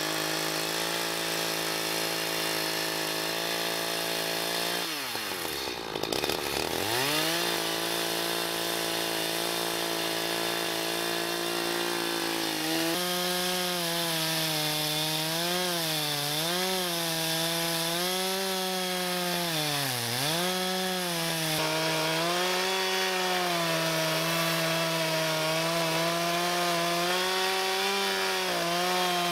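Two-stroke Echo chainsaw running at high revs while sawing through a maple burl. Its pitch drops sharply about five seconds in and comes back, then dips and wavers again and again through the second half as the chain bites into the wood.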